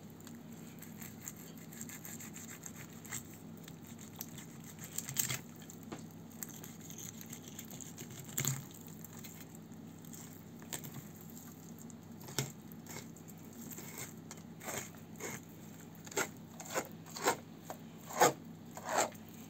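A kitchen knife scraping and cutting through pike flesh along the bones in short rubbing strokes, few at first and coming in a quick run over the last few seconds.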